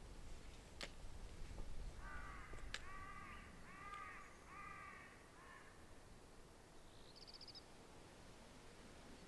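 A bird calling four times in quick succession, each call rising and falling in pitch, with a brief high trill from a small bird near the end. A few sharp clicks come in the first few seconds.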